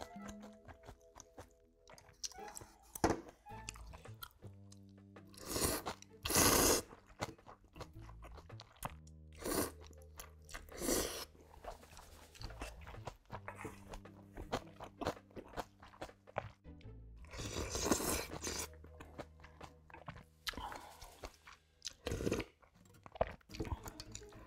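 Close-miked eating of spicy seafood ramyun: several long noodle slurps, the longest about six seconds in and another near eighteen seconds, with chewing, crunching and short clicks of chopsticks and spoon in between.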